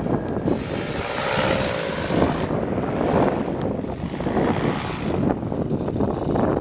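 Paramotor's small engine and propeller buzzing overhead, its note wavering up and down in pitch about a second in, over rough wind noise on the microphone.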